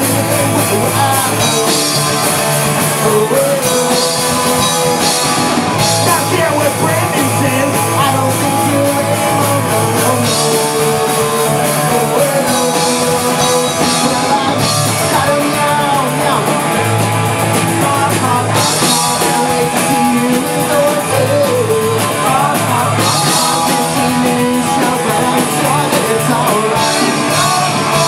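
Live pop-punk band playing loud, with electric guitar, electric bass and drum kit, and a singer's voice over the top.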